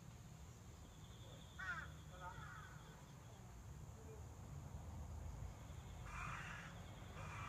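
Bird calls: a short call about two seconds in, followed by another, then harsher repeated calls near the end, over a low steady rumble.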